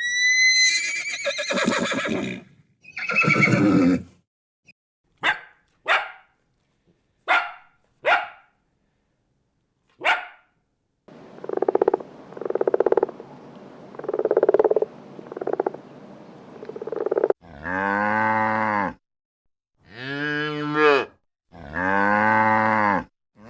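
A string of different animal calls: two long cries, then several short sharp calls, then a low rough stretch, and near the end three long calls of about a second and a half each, typical of cattle mooing.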